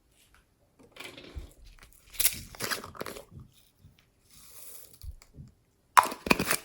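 Slime being worked by hand, crackling and popping in irregular bursts, with two sharp, loud pops near the end.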